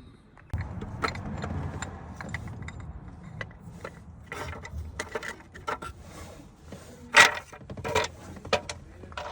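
Metal hand tools clicking and clanking against engine parts, over a low rumble that fades after the first few seconds. Two sharp metallic knocks stand out near the end.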